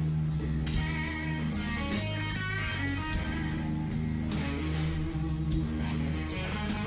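Background blues-rock music with guitar and a steady beat.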